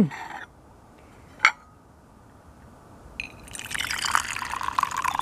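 A sharp knock and a light clink of the stainless steel teapot, then from about three seconds in, fruit tea pouring from the pot into a glass cup, a splashing stream that grows as the glass fills.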